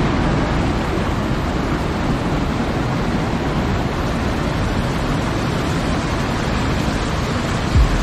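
Steady rushing of a mountain stream cascading over rocks into a pool, with a low thump near the end.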